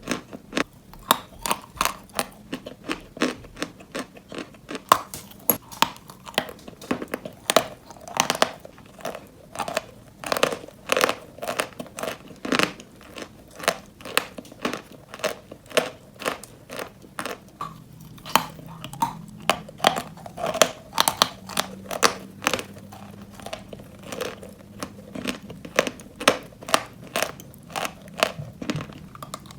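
Dry white Turkestan chalk being chewed close to the microphone: rapid, crisp crunching clicks, several a second, as the chalk breaks and crumbles between the teeth.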